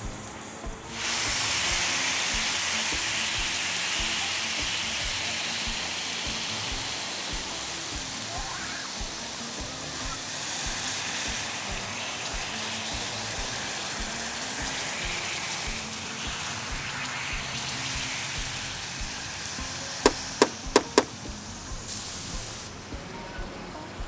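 Hot oil sizzling steadily as lokma dough balls deep-fry in a wide pan, with background music underneath. About twenty seconds in come four quick, sharp clicks.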